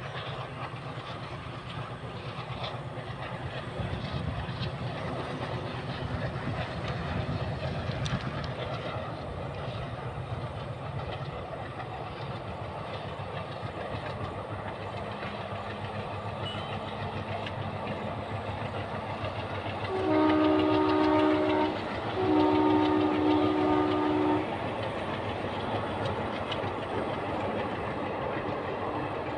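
Passenger train running on the rails with a steady rumble and clatter. About two-thirds of the way through, a train horn sounds two long chord-like blasts, the second a little longer.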